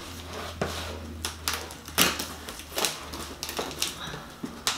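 Packaging being handled and opened by hand: an irregular run of crackles and sharp clicks, with louder snaps about two seconds in and near the end.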